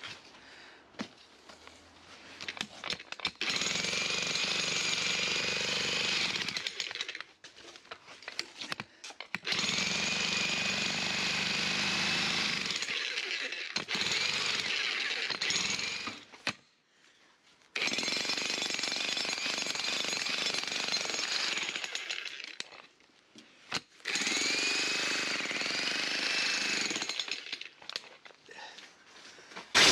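Electric demolition breaker hammering into the ground and old concrete in five runs of a few seconds each, with short pauses between them and a steady motor whine under the hammering.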